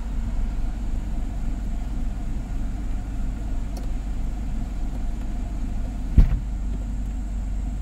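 Hyundai Kona N Line's engine idling, a steady low rumble heard inside the cabin, with one short thump about six seconds in.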